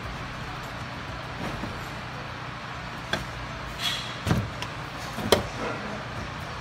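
Sheet-metal cover panel being fitted into the vending machine's cabinet: a few short metal knocks and a scrape from about halfway through, over a steady low hum.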